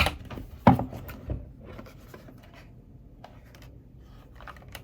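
Keys being pressed on a gaming keyboard as it is tested: a few sharp clicks in the first second and a half, then a quieter stretch with a few scattered faint clicks and some rubbing.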